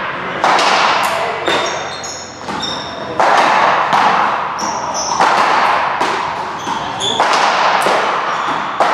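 Repeated hard thuds in a large echoing hall, roughly one a second, each ringing off into the room, with short high squeaks between them.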